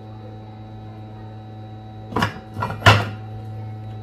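Steady electrical mains hum from bench equipment. About two seconds in come three short clatters in quick succession, the last the loudest, from tools being handled on the repair bench.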